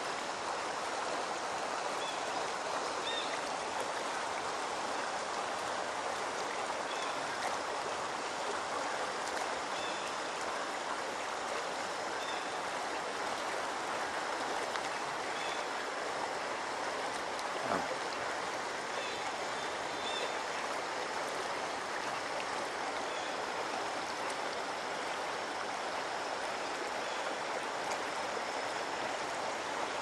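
Steady rushing of flowing stream water feeding a waterfall, with faint short high chirps now and then and one brief knock a little past the middle.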